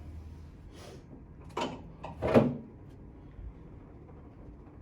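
Chiropractic treatment table moving under the patient: a few short mechanical knocks and slides, the loudest a little over two seconds in.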